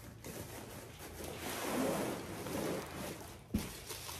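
Cardboard and bubble wrap rustling and scraping as a large wrapped panel is slid up out of its cardboard box, with one sharp knock about three and a half seconds in.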